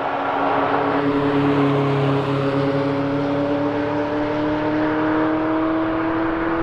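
A car engine pulling steadily, its pitch slowly rising as it accelerates, over a steady hiss of road noise.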